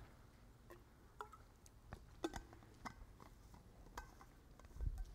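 Faint rustling of Bible pages and scattered small clicks and knocks from a seated audience, with a low thump near the end.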